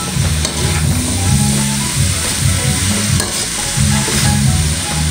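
Long beans sizzling in oil in a Maxim wok while a perforated metal spatula scrapes and tosses them around the pan, in uneven strokes over a steady frying hiss.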